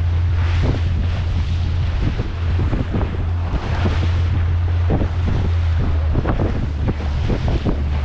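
Wind buffeting the microphone aboard a powerboat, over a steady low drone, with water washing and slapping against the hull in surges and short splashes.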